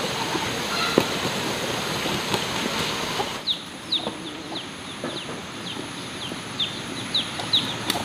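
A steady rushing noise with a few scattered knocks cuts off about three seconds in. Then chickens give a run of short, high, falling peeps, about two a second, coming a little faster near the end.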